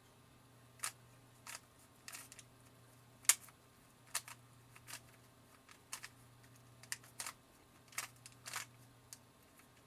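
Plastic Rubik's Cube being turned by hand: irregular clicks and clacks as its layers snap round, about fifteen in all, with one sharper clack about a third of the way in. It is a stock, unlubricated cube that turns noisily.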